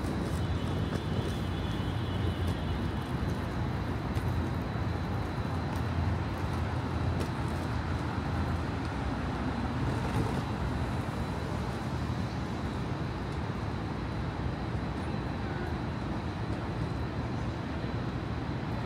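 Downtown street traffic: a steady low rumble of cars and other vehicles passing.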